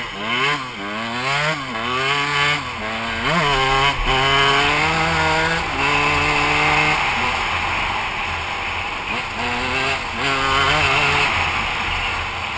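KTM dirt bike engine under hard acceleration, revving up and dropping back several times in quick succession in the first four seconds as it shifts up through the gears, then holding a steady pitch, with a few more rises and drops near the end.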